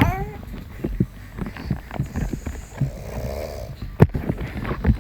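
A man snoring, with one rattling snore about three seconds in. A sharp click comes about four seconds in.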